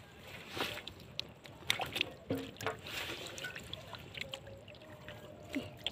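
Water splashing and trickling in irregular bursts, with scattered sharp clicks.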